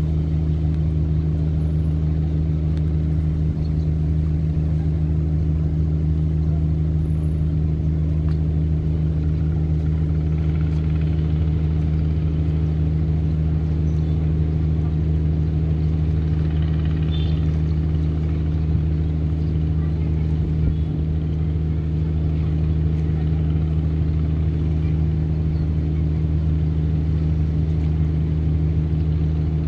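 Marine diesel engines running at a steady speed, a deep, even drone that does not change.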